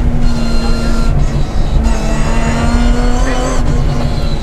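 BMW 325 Group A rally car's straight-six engine running hard under load, heard from inside the cockpit, briefly dipping about a second in and again near two seconds in as the throttle comes off and goes back on.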